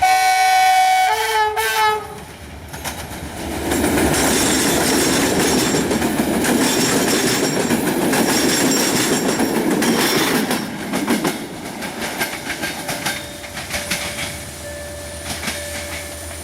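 Horn of an LDE2100 diesel locomotive (EGM 65 0990-5) sounding a loud chord for about two seconds, its pitch dropping about a second in as the locomotive passes. Then the passenger coaches go by with loud rumbling and wheel clatter over the rail joints, fading after about eleven seconds.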